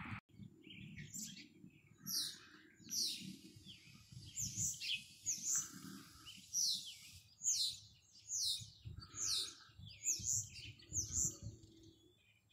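Small songbirds chirping: a steady run of short, sharp chirps, each dropping quickly in pitch, coming one or two a second.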